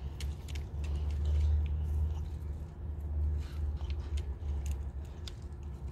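Fingers brushing through stiff, needle-like leaves and touching a woody seed pod, giving scattered small crackles and ticks over a steady low rumble on the microphone.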